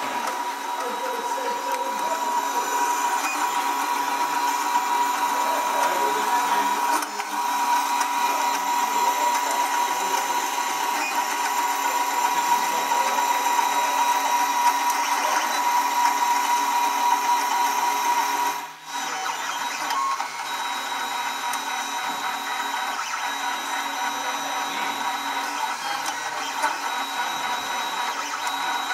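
Old MakerBot 3D printer running a print: its stepper motors whir with a steady high whine and several held tones that shift as the head moves. The sound dips briefly about 19 seconds in, then carries on a little softer.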